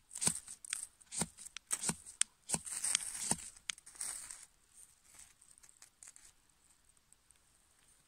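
A knife scraped repeatedly down a ferrocerium rod: a quick run of sharp rasping strikes for about four seconds, then only faint ticks as the struck sparks catch the tinder.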